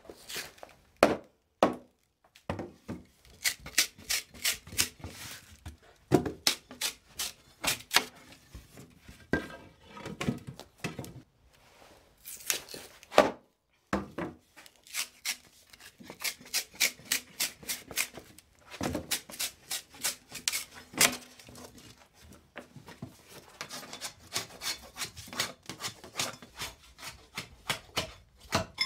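A froe struck with a wooden mallet to rive wooden shingles from a block: sharp knocks of the club on the blade, with runs of quick clicks and cracks as the blade is worked down through the splitting wood.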